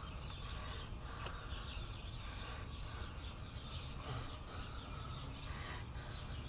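Birds chirping in the background over low, steady ambient noise.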